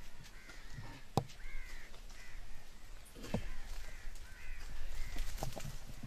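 Birds calling over and over in short, arching calls, with a few sharp knocks among them, the loudest about a second in.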